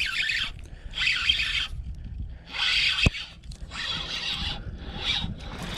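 A series of about five rough, rasping scrapes, each about half a second long and roughly a second apart, with one sharp click about three seconds in.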